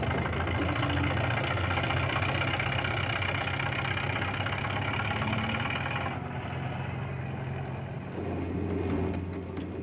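Diesel engine of a crawler sideboom pipelayer running steadily, its tone shifting about six seconds in.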